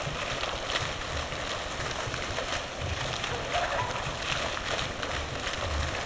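Fountain water jets falling back into the basin, a steady rain-like splashing and spatter of water.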